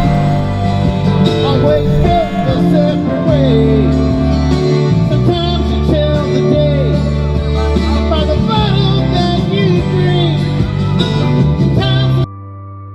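A song with a singing voice over plucked string instruments and steady low notes. It stops abruptly near the end, leaving a much quieter low, steady tone.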